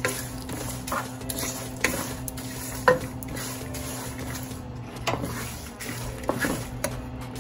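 Wooden spatula stirring and scraping peanuts, sesame seeds, dried red chillies and curry leaves as they dry-roast, without oil, in a nonstick pan. A handful of sharp knocks come where the spatula hits the pan.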